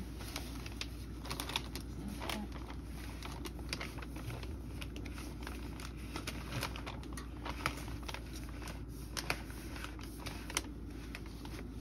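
Fan heater running with a steady low hum, with scattered light clicks and ticks over it.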